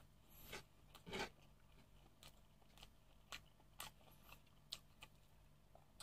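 Faint close-miked chewing: scattered wet mouth clicks and small crunches, with one louder crunch about a second in.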